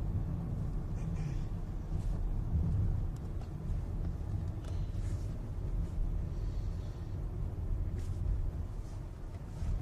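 Steady low rumble of a car's engine and tyres heard from inside the cabin while driving, with a few faint ticks.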